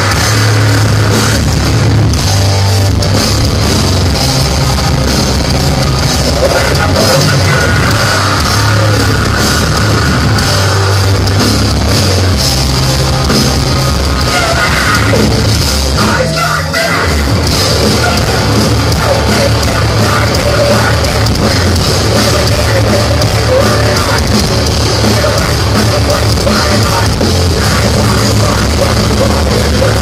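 Heavy metal band playing live, loud: distorted electric guitars, bass and drums, heard from within the crowd in a club. The playing breaks off briefly about halfway through before starting again.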